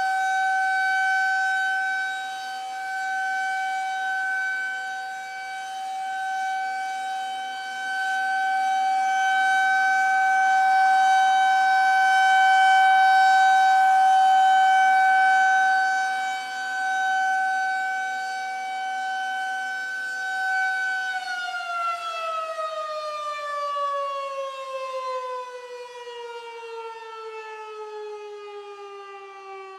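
Federal Signal 2001-130 single-tone rotating outdoor warning siren sounding its steady alert tone for a tornado drill, swelling and fading in loudness as the horn turns. About two-thirds of the way through, it starts winding down, its pitch sliding steadily lower as it fades.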